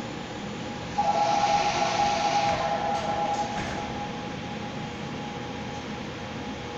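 Seoul subway car doors closing: a steady two-note warning tone with a hiss starts about a second in, and the doors knock shut around three seconds in, over the hum of the standing train.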